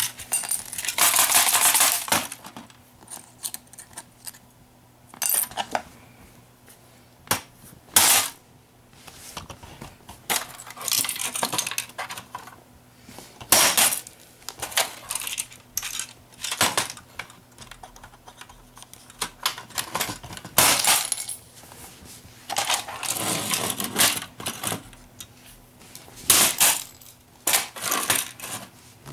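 Hard plastic VHS cassettes being handled and broken apart by hand: irregular clicks, snaps and clatter of plastic, with a few rustling stretches of a second or two.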